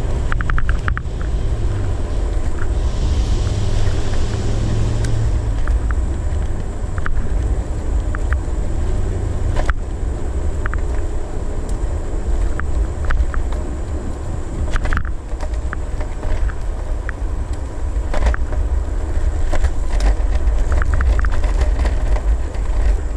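Wind rushing over the microphone and road rumble while riding a Segway Ninebot ES1 Gen2 electric kick scooter on asphalt, with scattered clicks and rattles from bumps.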